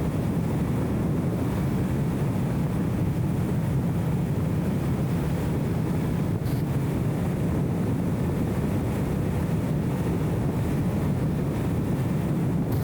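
Steady low drone of a BMW E34 M5 Touring's straight-six engine and road noise while cruising, dulled by the camera's anti-wind audio filter.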